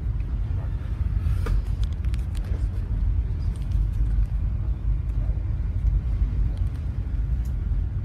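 Steady low rumble of a cargo ship's engine and hull vibration heard inside the wheelhouse while the ship is underway. A few light clicks and knocks come between about one and a half and two and a half seconds in.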